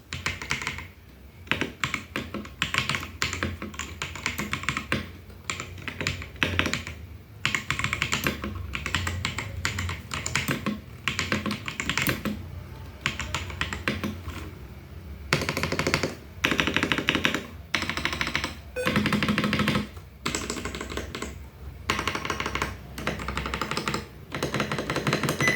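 Typing test on a Vortexseries Mono 75% gasket-mount mechanical keyboard with CXZ White linear switches and ABS doubleshot keycaps: a steady stream of keystroke clicks, turning into dense, fast runs of keystrokes in the second half. Picked up without a dedicated microphone.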